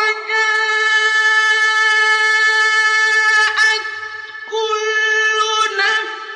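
Male Quran reciter chanting in a high register: one long note held steady for about three seconds, a short break, then another long held phrase with slight ornaments near the end.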